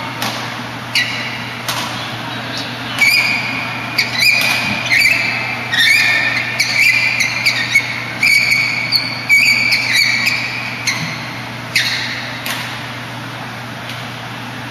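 Sports shoes squeaking on an indoor badminton court mat: many short, high squeaks, thickest in the middle stretch, among sharp clicks and knocks.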